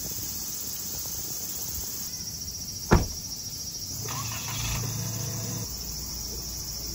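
Insects droning steadily in a high pitch, with one sharp click about three seconds in and a faint low hum from about four to six seconds.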